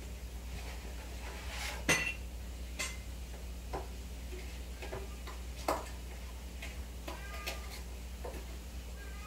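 Aquarium equipment running: a steady low hum from the air pump and filters, with scattered light clicks and clinks, the loudest about two seconds in and just before six seconds. A few faint short tones come near the end.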